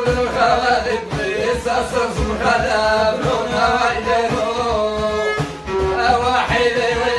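Men singing an Amazigh folk song, accompanied by a violin played upright on the knee, a bendir frame drum and a tambourine keeping a steady beat.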